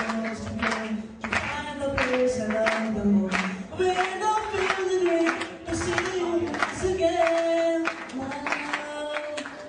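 Singing with music: a voice holding long notes that slide slowly between pitches, over a steady beat of sharp strokes.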